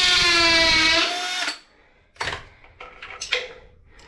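A power drill running with a steady whine that sags slightly in pitch, stopping abruptly about one and a half seconds in, followed by a few light clicks and knocks.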